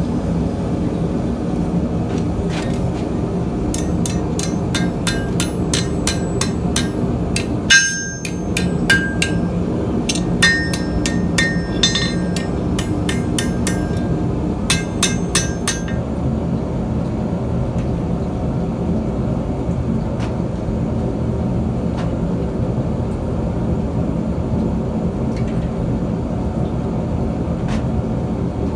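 Blacksmith's hammer striking steel on an anvil, a run of sharp blows at about three a second, some ringing, that stops about halfway through. Under the blows and after them there is a steady low roar.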